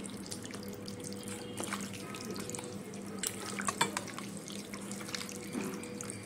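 Wet squelching of mutton pieces being rubbed and mixed by hand in a yogurt-and-spice marinade in a steel bowl, with scattered clicks as the meat knocks against the bowl. A low steady hum runs underneath.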